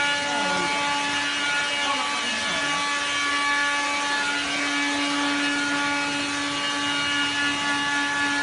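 A steady mechanical whir from a running motor, holding several unchanging tones over a noisy hiss.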